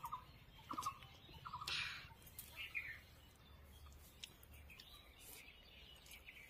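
Faint bird calls in the background: a short call repeated three times in the first two seconds, then a higher call, with a brief burst of noise and a few light clicks.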